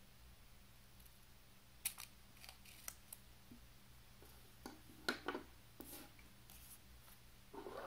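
Small craft scissors snipping thin paper: a few quiet snips about two seconds in, then louder clicks of the blades and a knock around five seconds as they are handled. A short rustle of paper comes near the end, over a faint steady hum.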